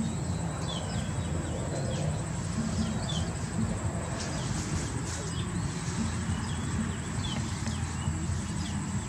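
Outdoor ambience: a steady high insect whine over a low rumble, with a few short bird chirps every two seconds or so.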